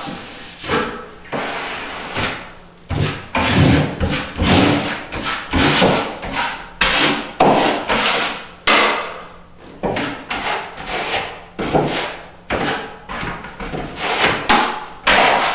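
A 6-inch drywall taping knife scraping drywall mud off a metal mud pan and spreading it into a gap in a drywall corner. It goes in repeated scraping strokes, about one a second, each starting sharply and fading.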